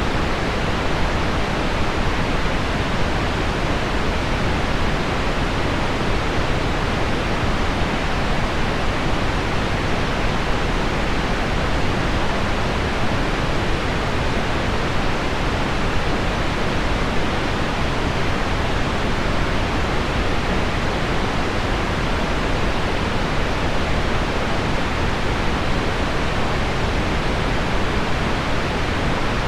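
Steady, unbroken pink noise mixed with heavy rain hitting window glass: a deep, even hiss with no individual drops or changes standing out.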